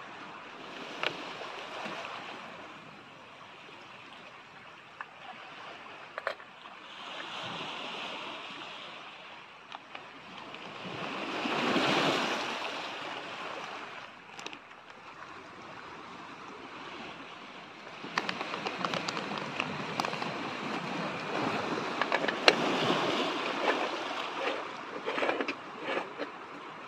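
Sea waves washing onto a pebbly beach, swelling and falling, loudest about halfway through. Over the last third, a run of sharp clicks and clinks as a moka pot and coffee gear are handled and screwed together.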